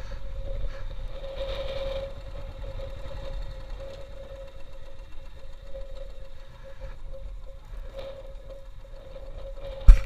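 Royal Enfield single-cylinder motorcycle engine running steadily while riding, heard over wind on the camera with a steady whine above it. A sudden loud knock comes just before the end.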